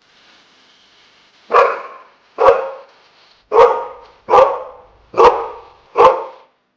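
Dog barking six times, about one bark a second, starting about a second and a half in.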